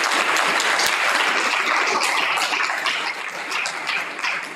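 Audience applauding, thinning out near the end into a few scattered claps.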